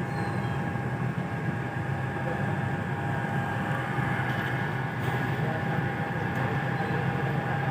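Bus engine running steadily with a low rumble, a constant high tone held over it throughout.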